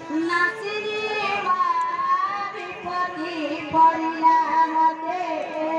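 A woman singing a Sambalpuri danda folk song in a high voice through a microphone and loudspeaker, with long wavering held notes over a steady tone beneath.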